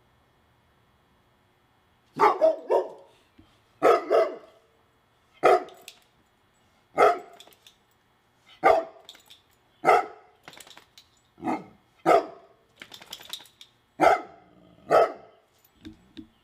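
A dog barking repeatedly, starting about two seconds in: about a dozen short, loud barks, some in quick pairs, a little over a second apart.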